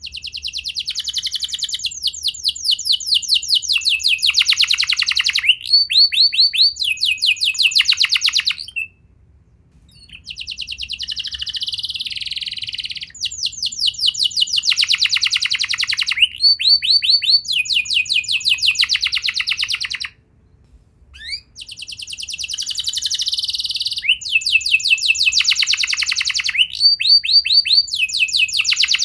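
Domestic canary singing long phrases of fast trills, each made of rapidly repeated notes that change from one tour to the next. The song breaks off briefly twice, about nine seconds in and about twenty seconds in.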